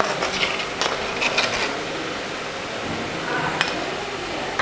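Chopped onions frying in hot oil in a nonstick pan, a steady sizzle, with a few light clinks in the first second and a half and a single click near the end.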